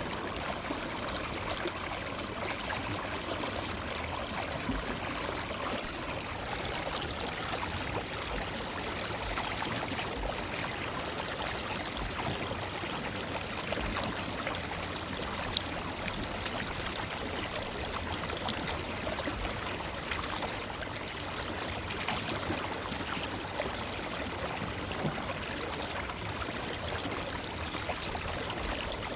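Forest river flowing steadily over rocks, a continuous rush of water with small splashes and gurgles.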